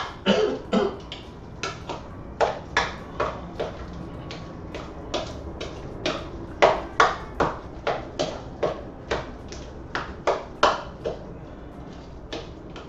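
Spoon knocking against a plastic mixing bowl while guacamole is stirred and mashed: a run of short, sharp clacks, about two to three a second, unevenly spaced.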